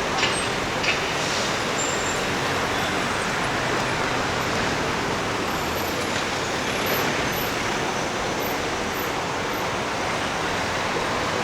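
Steady city street traffic noise: a continuous rush of passing road vehicles, with a couple of short clicks in the first second.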